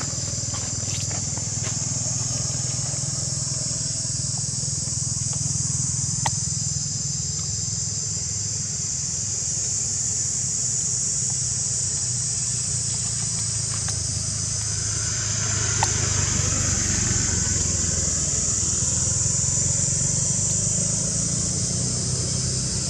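Steady outdoor background: a continuous high-pitched hiss over a low rumble, with a couple of faint clicks.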